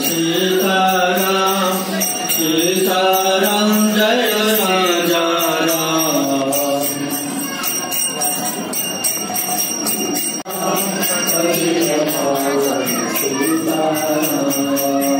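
Devotional chanting and singing with small bells jingling steadily throughout.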